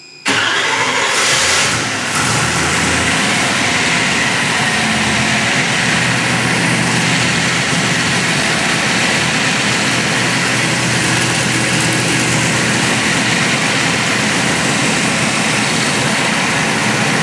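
A 357-cubic-inch LT1 small-block V8 on an engine dyno firing up for the first time. It catches almost at once, runs a little louder for the first couple of seconds, then settles into steady running while its ignition timing is checked.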